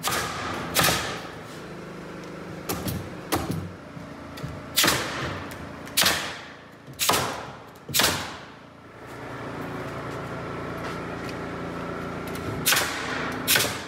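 Pneumatic nail gun firing nails into a wooden window header, about ten sharp shots at irregular spacing, over a steady mechanical hum.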